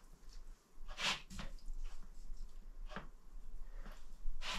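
Kitchen knife scoring the fat and rind of a raw pork joint for crackling: about half a dozen short, irregular cutting scrapes. The knife is one that needs sharpening.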